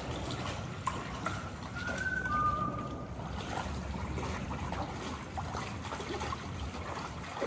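River water trickling and lapping, with two faint, brief tones about two seconds in.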